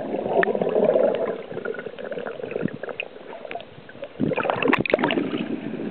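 Muffled underwater sound from a camera submerged in the sea: bubbling and gurgling water as a child breathes out underwater. A louder stretch of bubbling with sharp clicks comes about four seconds in.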